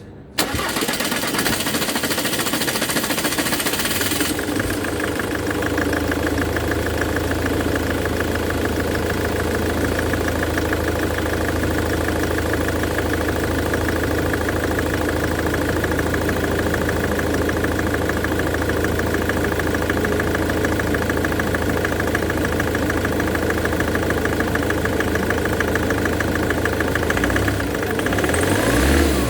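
Jaguar X-Type engine starting suddenly about half a second in, then settling into a steady idle. There is a brief change in its note near the end.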